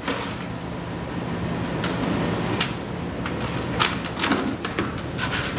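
Dogs milling around a cat on a hard floor: a handful of short sharp scuffs and clicks, most in the second half, over a steady hiss with a faint low hum.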